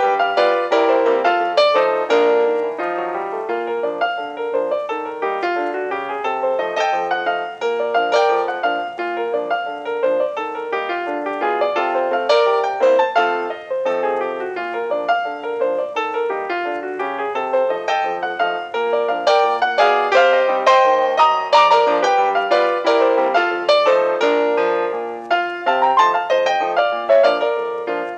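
Background piano music with busy, quickly moving runs of notes.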